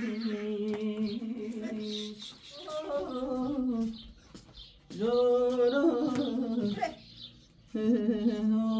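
A voice humming or singing a slow, wordless tune in long held notes. It comes in four phrases with short breaths between them.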